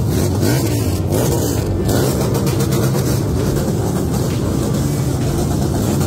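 Several motorcycle engines running together at low speed, with brief revs that rise and fall in pitch.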